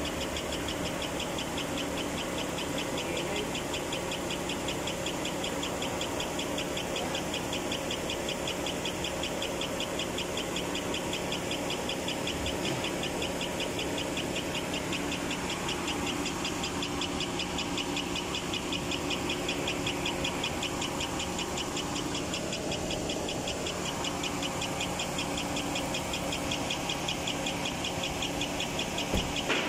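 GMC Yukon V8 engine idling steadily, a fast, even ticking from the top of the engine over a steady hum. This is the noise the owner presents as an engine problem to be diagnosed.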